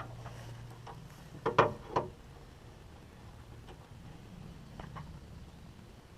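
A few sharp knocks and clinks of tools and metal while a car door is being stripped to remove its window glass: three quick knocks about a second and a half in, then a couple of fainter clicks later, over a low steady hum.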